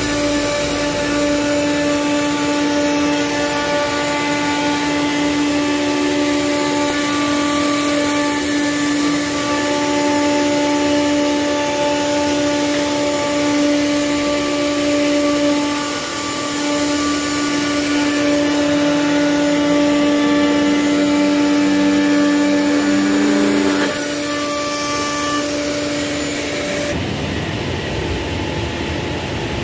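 CNC woodworking machine running with a steady whine, its pitch holding level; the sound changes near the end.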